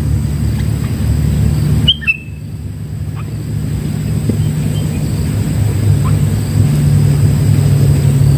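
A steady low rumble with a few short bird chirps over it; the clearest chirp, a quick high note, comes about two seconds in.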